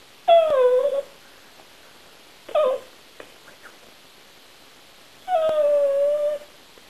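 Staffordshire bull terrier whining three times: a drawn-out whine that falls in pitch, a short one, then a longer, steadier one near the end.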